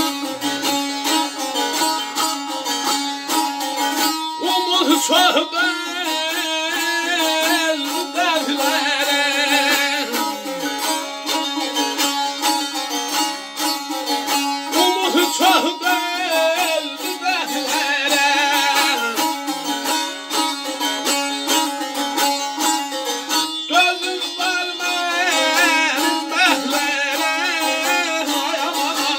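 Azerbaijani saz playing an ashiq melody: quick plucked and strummed notes with wavering ornaments over a steady low drone.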